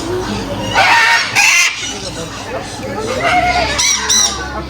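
Parrots squawking and calling in an aviary, several short harsh calls about a second in, around a second and a half, and again near the end.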